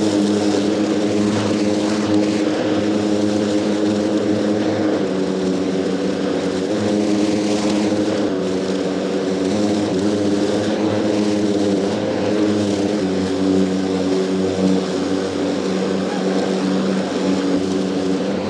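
Kärcher commercial battery lawnmower mulching long grass: a steady whirring hum from its motor and spinning blade, wavering slightly in pitch.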